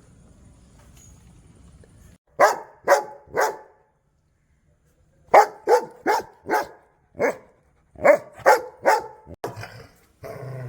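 Angry dog barking: three sharp barks about two seconds in, a short pause, then a run of about ten barks. A low growl starts near the end.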